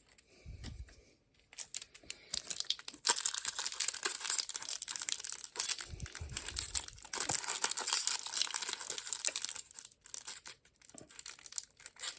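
Foil Pokémon booster pack wrapper crinkling and tearing as it is worked open by hand, starting about three seconds in after a quiet start. The pack is hard to open.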